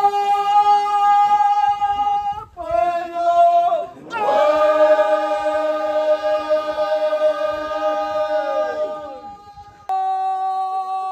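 A group of men's and women's voices singing together in long held notes, several pitches sounding at once. Three drawn-out phrases, the last one fading away, then a new note cuts in abruptly near the end.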